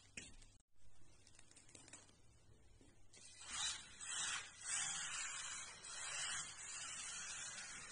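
Kyosho Mini-Z buggy with a brushless motor driving fast across a hard plank floor: a hissing rush of tyres and drivetrain. It is faint at first, then grows loud about three seconds in and surges several times as the car passes close by.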